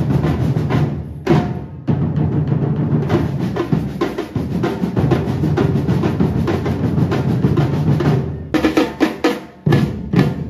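Street drum band of large metal surdo bass drums and smaller repinique drums playing together in a dense, fast rhythm. There is a brief break about two seconds in, and separate accented hits near the end.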